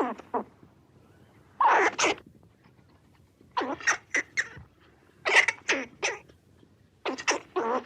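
An animal calling in short, sharp bursts: clusters of two to four quick calls, repeating about every two seconds.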